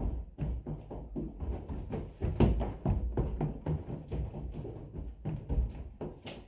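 Background music with a dense, irregular run of percussive knocks and taps over sustained low tones.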